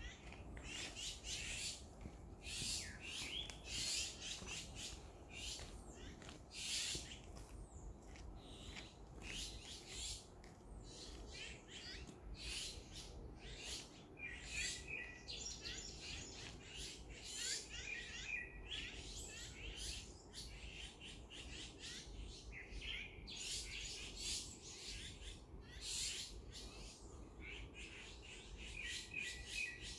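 Wild birds chirping and calling in a dense, continuous run of short high notes, over a steady low background rumble.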